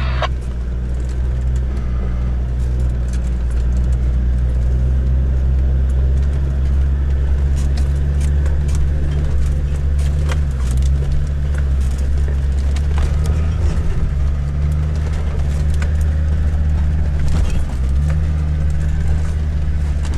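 Land Rover Discovery 2 Td5 five-cylinder turbodiesel engine running at low revs, heard from inside the cabin as it crawls over a rocky track. The engine note shifts a few times, and scattered clicks and knocks come from the stones and the cabin.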